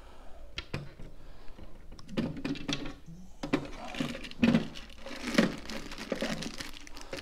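Plastic clicks and knocks from an electrical enclosure being opened and handled: a hinged clear cover and the box's parts. Near the end a plastic bag of cable glands rustles.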